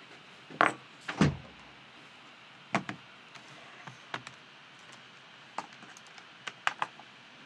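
A studio door thudding shut about a second in, then scattered clicks and taps as things on the desk are handled.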